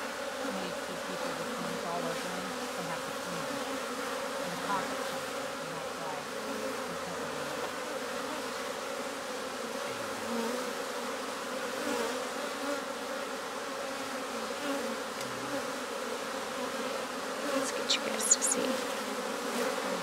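A clustered honey bee swarm buzzing steadily, a dense hum of many bees, stirred up as the cluster is scooped by hand.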